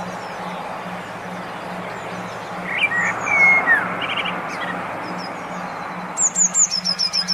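Songbird calls over a low tone pulsing about two and a half times a second and a steady hiss, the layered bird-therapy track meant to stimulate caged songbirds to sing. About six seconds in a fast run of high, sharp repeated chirps starts and becomes the loudest sound.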